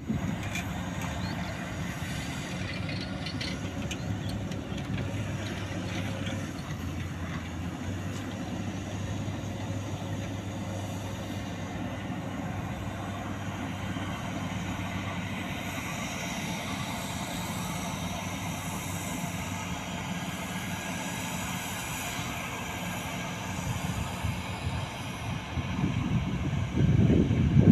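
Diesel engines of dump trucks and an excavator running on an earthworks site: a steady low hum, with a louder rumble in the last two seconds.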